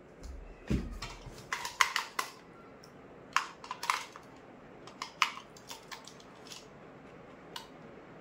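Plastic clicks and knocks of a toy drone's handheld remote controller being handled while battery cells are fitted into it: a dozen or so short, sharp clicks at irregular intervals, after a soft thump about a second in.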